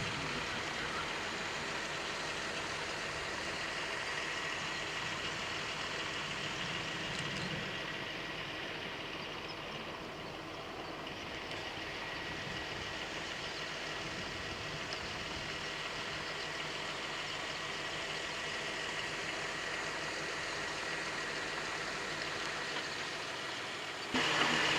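Steady hum of a vehicle's engine running, with a faint steady high whine over it.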